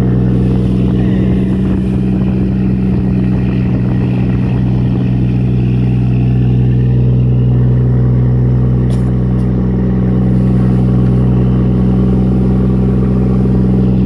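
A fishing boat's inboard engine running steadily and loudly at a constant speed, with water rushing and splashing along the wooden hull as the boat pushes through rough waves.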